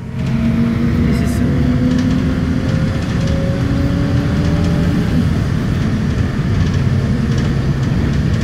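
Motor vehicle heard from inside the cabin: a steady engine and road rumble while it drives. A faint whine rises slowly in pitch over the first five seconds as it speeds up.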